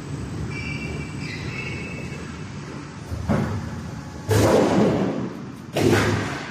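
Sheet-metal duct-making machinery running with a steady low hum, then three loud heavy thumps from the machine, the last two the loudest, each fading out over most of a second.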